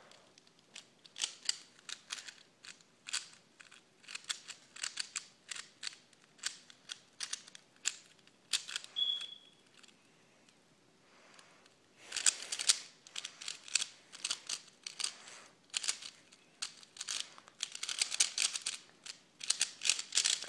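3x3 Rubik's Cube being solved at speed: rapid runs of plastic clicks and rattles as the layers are turned, with a pause of about two seconds near the middle.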